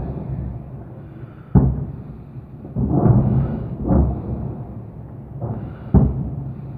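Distant artillery booms from a rocket-artillery barrage: four heavy, rumbling thuds at irregular spacing, each rolling away over about a second.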